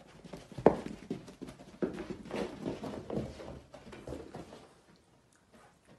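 Small pig grunting in a run of short, irregular grunts, the loudest about a second in, tapering off near the end.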